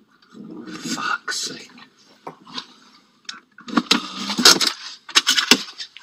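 Handling noise from a phone's microphone: irregular rustling, scraping and knocking as the covered phone is moved about, getting busier and louder in the second half.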